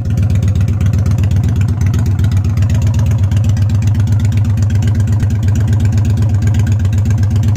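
Kawasaki Vulcan 800 Drifter's V-twin engine idling steadily, with a fast, even low pulse.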